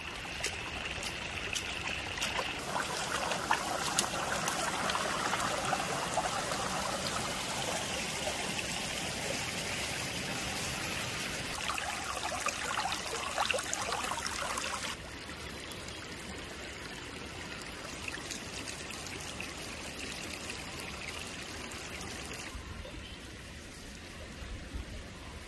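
Shallow stream running and trickling over rocks, a steady rush of flowing water that drops to a quieter level a little past halfway through.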